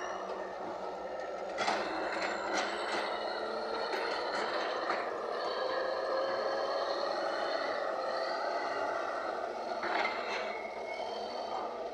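Heavy earthmoving machinery working murram: a diesel engine under load whose pitch rises slowly for a few seconds midway, with scraping and several sharp clanks.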